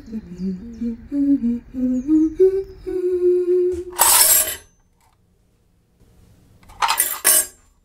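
A person humming a short tune in steps, ending on a held note. About four seconds in, a loud metallic clatter as a pile of thin stamped steel spanners is tipped from a box onto a wooden table, and a second, shorter clatter near the end.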